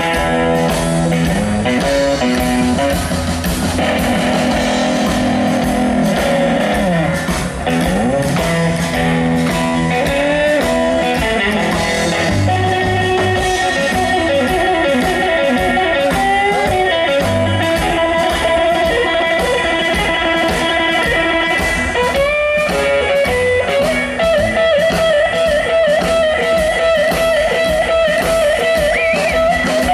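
Live blues band playing an instrumental passage: an electric guitar plays lead lines with string bends over upright bass and a steady drum beat.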